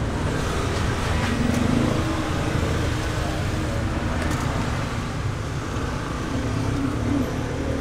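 Steady low rumble of road traffic, with engines running by.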